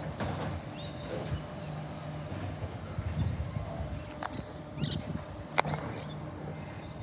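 Distant garbage recycling truck's engine running steadily, with a few sharp metallic knocks, the loudest about five and a half seconds in.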